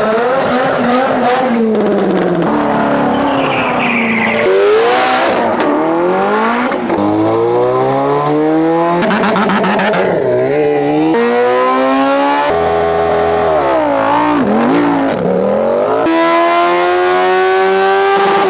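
A quick succession of short clips of high-performance engines revving and accelerating hard, cut together abruptly every two to four seconds. Pitch climbs and drops sharply at each gear change, with rapid rises and falls as vehicles launch and pass.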